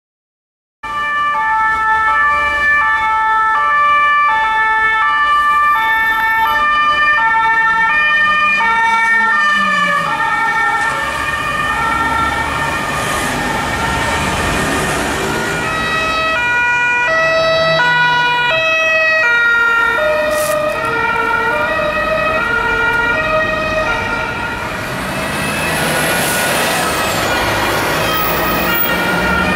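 Sirens of several police cars sounding at once, each switching back and forth between two tones and out of step with the others, starting abruptly about a second in. Road traffic runs underneath.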